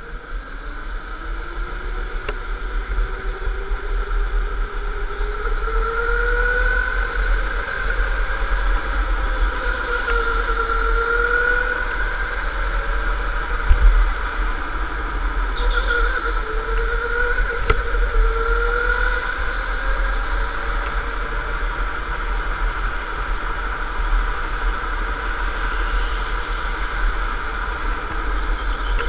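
Electric indoor go-kart's motor whining, the pitch climbing as it pulls away and then rising and falling again and again through the corners, over a steady low rumble. One sharp knock about halfway through.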